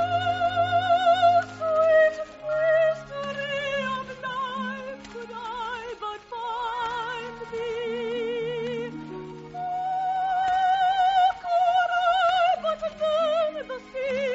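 Operatic soprano singing long, held phrases with wide vibrato over a soft orchestral accompaniment, on an old radio broadcast recording.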